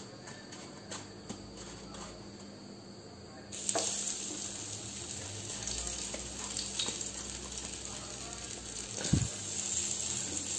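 Rava-coated ridge gourd slices shallow-frying in hot oil. The sizzle starts suddenly about three and a half seconds in, as the first piece goes into the pan, and carries on steadily. Before that there are only a few light ticks, and there is a soft knock just after nine seconds.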